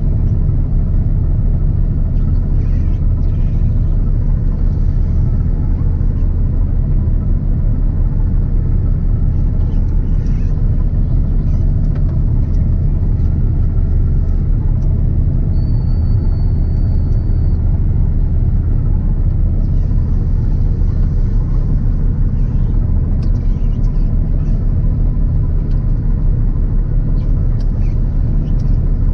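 Claas Lexion 770 combine harvester running steadily while harvesting: a constant, loud, low drone of engine and threshing machinery.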